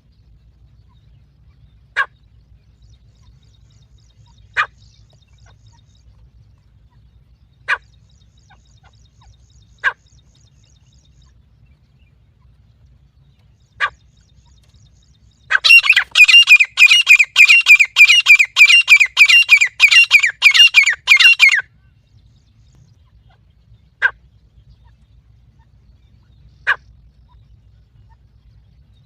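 Teetar (francolin) calls played as a lure to draw the birds in: short, sharp single call notes every two to four seconds, with a rapid run of many calls for about six seconds in the middle before the single notes resume.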